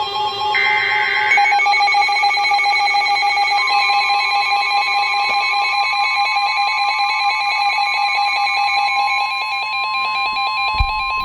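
Emergency Alert System tones from weather radio receivers: the last burst of a SAME data header ends about a second and a half in, then several steady alert tones sound together, with a further steady tone joining about three and a half seconds in, as in the NOAA Weather Radio warning alarm. A short low thump sounds near the end.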